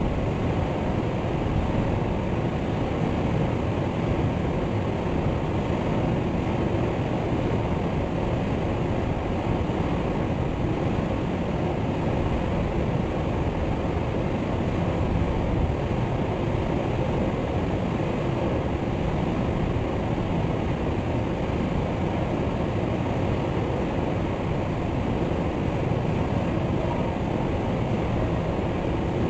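Waterfall: a steady, unbroken rush of falling water, heaviest in the deep and middle range.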